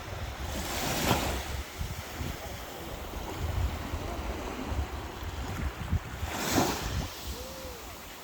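Sea waves breaking and washing on the shore, two swells about a second in and again about six and a half seconds in, with wind buffeting the microphone throughout.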